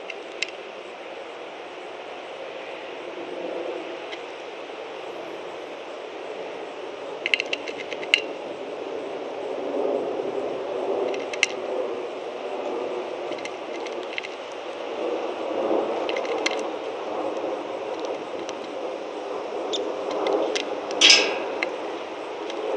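Red-winged blackbird pecking at sunflower seeds and peanuts on a wooden feeder board right by the microphone: scattered sharp taps and cracks of beak on seed shells and wood, the loudest cluster near the end, over a steady low background rumble.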